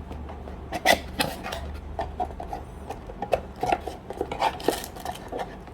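Fishing-reel packaging being opened and handled: irregular clicks, taps and rustles, the sharpest about a second in, over a low steady hum.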